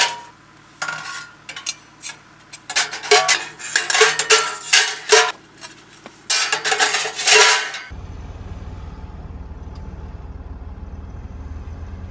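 Metal clanking and clinking as a small metal camping wood stove and its parts are handled and packed away: a quick run of knocks with a short metallic ring. About eight seconds in this gives way to a steady low engine rumble from the car hitched to the caravan.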